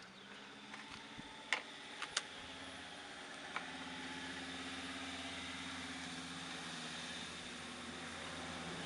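A few light clicks, then a steady engine hum that swells slightly about two and a half seconds in and keeps running.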